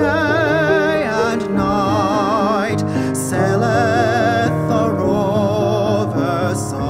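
Classical art song: a tenor sings several long, held notes with vibrato over piano accompaniment.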